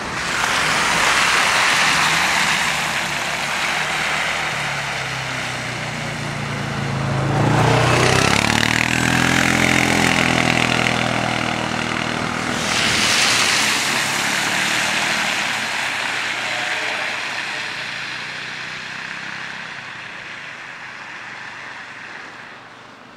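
Vehicles passing on a snowy road: a loud tyre hiss swells and fades several times. One vehicle's engine drops in pitch as it goes by, about 7 to 10 seconds in.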